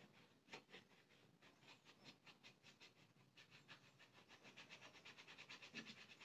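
Faint scratching of a pen writing on paper, a string of short strokes that come quicker and a little louder in the second half.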